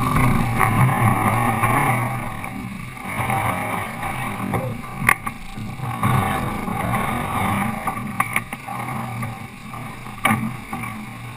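Sailboat underway: a steady rush of wind and water with a few sharp knocks, the clearest about five seconds in and another about ten seconds in.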